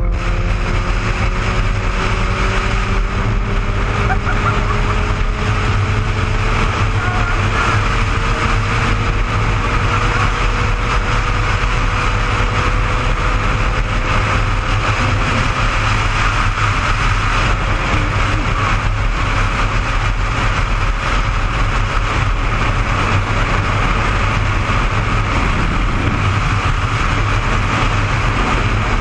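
Motorcycle cruising at highway speed, heard from a helmet-mounted camera: steady wind rush over the microphone with the engine running underneath, its pitch rising slowly over the first half.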